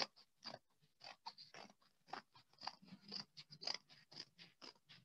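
Scissors snipping through a sheet of brown bag paper: a faint run of short, crisp cuts, roughly four a second.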